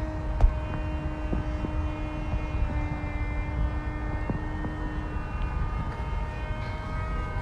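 A remote-control airplane's motor and propeller whining at a nearly steady pitch that shifts slightly up and down, with a low rumble underneath and a few sharp clicks.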